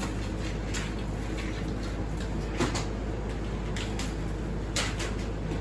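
Scattered short clicks and knocks, the loudest about two and a half seconds in and again near the end, over a steady low hum.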